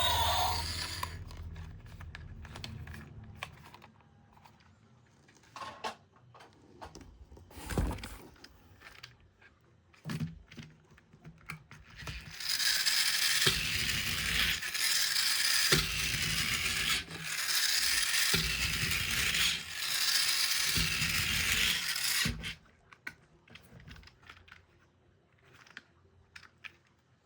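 Toy packaging being handled and torn open, with scattered clicks and knocks of plastic toys. A stretch of dense tearing and rustling starts about halfway in and lasts around ten seconds.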